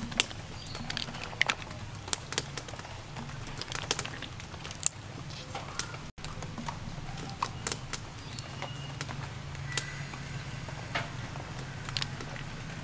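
Mussel shells clicking and clacking against each other and on a metal colander as they are picked over by hand; irregular sharp clicks, several a second at times.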